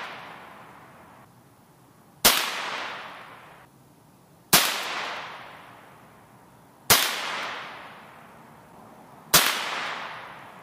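Four shots from a Ruger 10/22 semi-automatic rifle firing Remington Yellow Jacket .22 LR hypervelocity hollow points, spaced a little over two seconds apart. Each sharp crack is followed by a fading echo.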